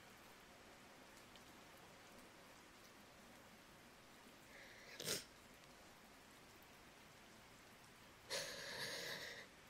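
Near silence with faint room hiss, broken by a woman's quiet breathing as she settles from crying: a short sniff about five seconds in and a longer, shaky breath near the end.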